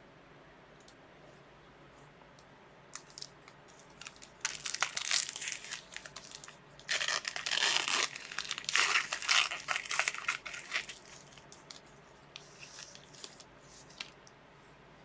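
Plastic trading-card packaging torn open and crumpled by hand. There are two loud stretches of crackling, one about four seconds in and a longer one about seven seconds in, then a few fainter crinkles near the end.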